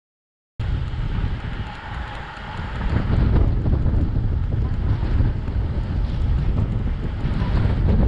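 Wind buffeting a camera microphone on a moving bicycle at about 22 mph, a loud, rough low rumble. The sound is cut to silence for about the first half second.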